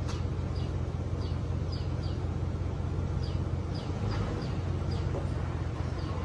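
Engine of the tow vehicle running with a steady low drone as it pulls a car forward on a chain. Short, falling bird chirps repeat about twice a second over it.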